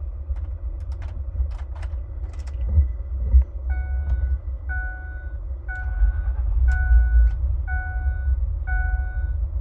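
A few clicks and knocks, then an electronic chime sounding about once a second, six times, over a steady low rumble.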